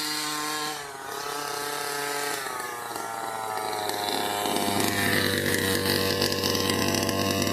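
Small two-stroke engine of a radio-controlled car running at a steady high pitch, wavering briefly about a second in, then growing steadily louder as the car comes closer.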